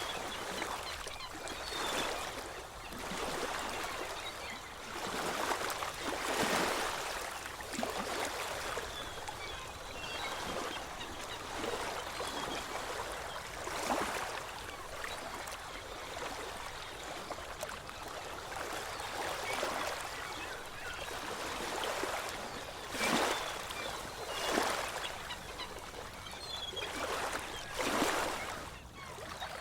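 Ocean waves washing onto the shore, a steady rush of surf that swells and falls back every few seconds, with stronger breaks now and then.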